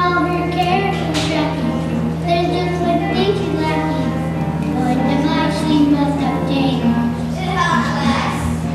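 Children singing a song together, with musical accompaniment.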